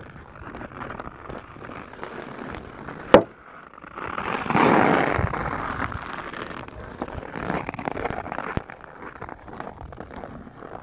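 Hockey skates scraping and carving over lake ice, with one sharp crack of a puck shot about three seconds in. A louder, longer scrape of blades on the ice follows about a second later.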